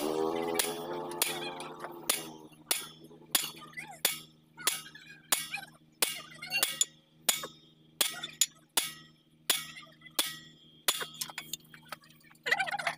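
A sledgehammer striking a hand-held hammer set on a steel plate atop a truck steering knuckle, driving a part into the kingpin bore: sharp metal clanks, about one and a half a second. A wavering pitched drone fades out over the first two seconds.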